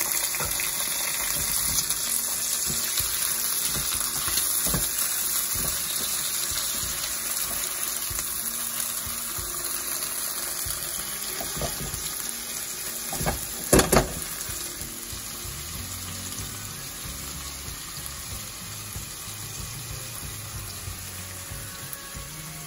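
Prawns, chilli and tinned tomato sizzling in oil in a frying pan, a steady hiss that slowly dies down as the wet tomato cools the pan. About two-thirds of the way through, the spatula knocks sharply against the pan twice.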